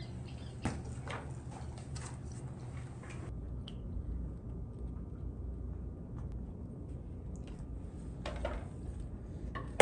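Quiet room tone: a low steady hum with a few faint clicks and taps, mostly in the first three seconds.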